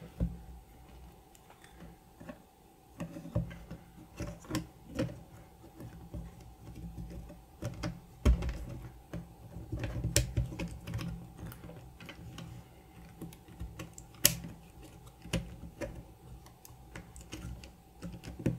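Irregular clicks and taps of a Logitech G300s mouse's plastic shell and circuit board being handled and fitted back together, with the sharpest click about fourteen seconds in.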